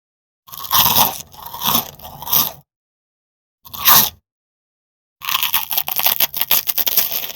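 Potato crisps crunching and crackling in three separate bursts. The first is a couple of seconds long, the second is brief, and the last is a dense run of crackles about five seconds in, with dead silence between the bursts.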